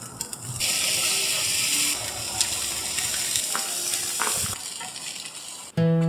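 Meat sizzling on a barbecue grill: a loud hiss that eases after about a second and a half and fades out around four and a half seconds, with a few light clicks. Acoustic guitar music starts near the end.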